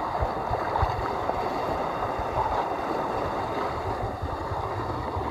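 Steady rush of water and wind as a sailing trimaran moves under sail in a light breeze, with no engine running.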